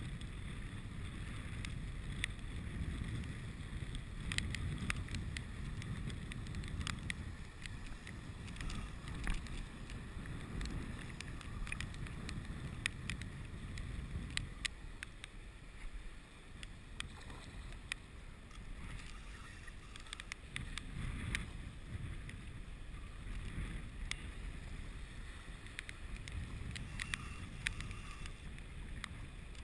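Wind buffeting the microphone over choppy open water, with water lapping and scattered sharp clicks and ticks.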